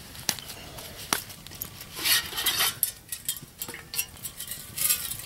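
Stainless steel canteen being pulled out of its canvas pouch: cloth rustling and scraping, broken by sharp clicks and metal clinks, the loudest rustle about two seconds in.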